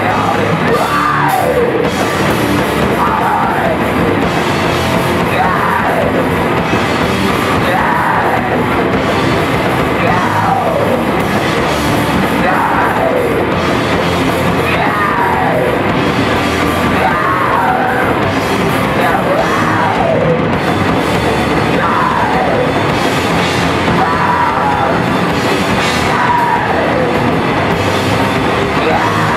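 Crust punk band playing live: loud distorted music with drums and yelled vocals, with a falling figure that repeats about every two seconds.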